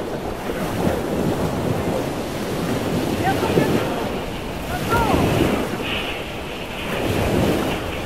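Wind buffeting the microphone outdoors by open water, swelling and easing every second or two, with a few faint short high sounds in it.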